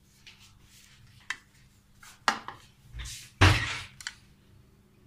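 Kitchen handling noise: a few sharp clinks and knocks of a plate and knife being moved about on a counter and a wooden cutting board, the loudest a heavier knock about three and a half seconds in.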